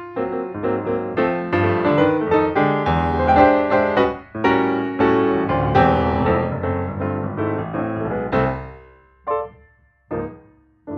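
Piano outro music: a steady run of quick notes and chords that fades about eight seconds in, followed by two short separate chords and a final chord struck at the very end.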